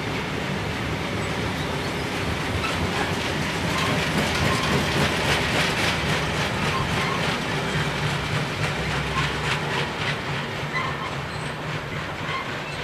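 Long freight train of cement tank wagons rolling past, its wheels clicking steadily over the rail joints with a continuous rumble. It gets louder about four seconds in and eases off near the end.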